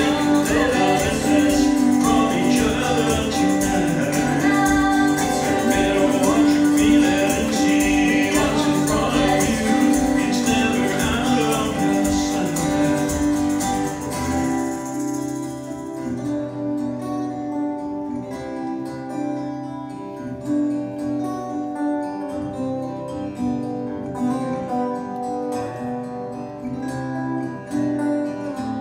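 Live band playing a song on acoustic guitars and keyboard, with singing. About halfway through, the singing stops and the guitars and keyboard play on a little more quietly.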